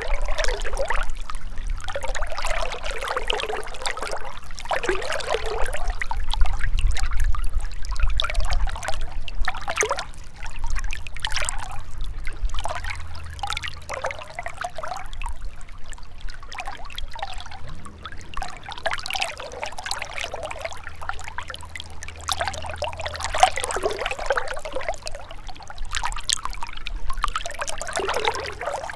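A gentle river trickling and gurgling over stones, swelling and easing every few seconds, with a low rumble underneath.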